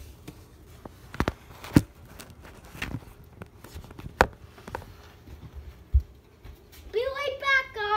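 A few separate knocks and clicks of the phone being handled and moved, then near the end a child's voice holding one high, wavering, sung note for about a second.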